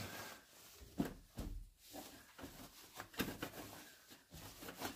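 Irregular knocks, clicks and rattles of hand work as a part is worked loose and pulled out, with sharper knocks about a second in and again a little after three seconds.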